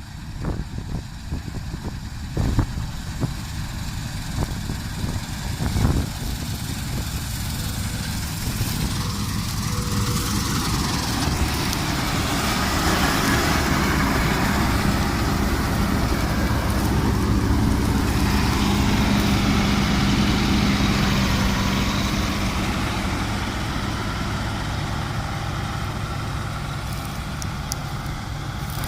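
Sparry 8060 combine harvester running steadily as it works through wheat, its engine and threshing noise growing louder over the first two-thirds, then easing off slightly. Two thumps sound in the first six seconds.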